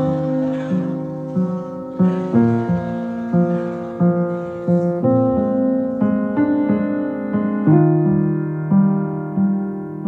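Background music: a piano playing an unhurried melody of evenly struck notes that ring and fade.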